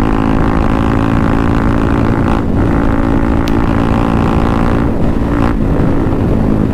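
KTM Duke 200's single-cylinder four-stroke engine with an aftermarket Akrapovic exhaust, held at high revs under load at speed. The sound briefly dips twice, about two and a half and five seconds in.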